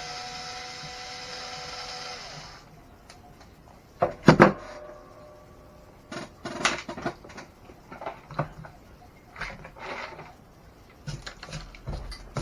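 A small electric power tool's motor runs with a steady whine and stops about two and a half seconds in. Then come scattered clicks and knocks of parts and tools being handled, loudest about four seconds in.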